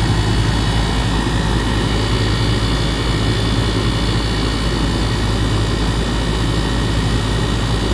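A 2018 Goodman 2.5-ton gas pack running steadily in cooling mode, heard up close at the compressor: a steady low hum from the running compressor under the rushing air of the condenser fan.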